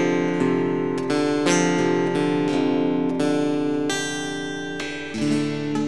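Background music: strummed acoustic guitar playing a steady run of chords, changing chord about five seconds in.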